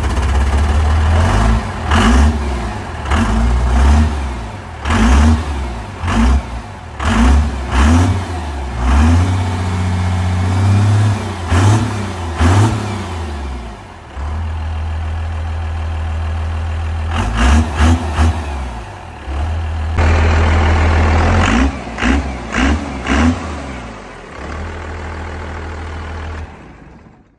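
Freshly built compound-turbocharged 12-valve Cummins inline-six diesel running just after a restart, its throttle blipped again and again so the revs rise and fall about once a second, with steadier idling stretches between. The sound cuts off near the end.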